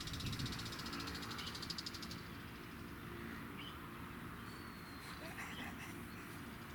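Wild birds singing: a fast, high rattling trill over the first two seconds, then scattered short chirps and thin whistled notes.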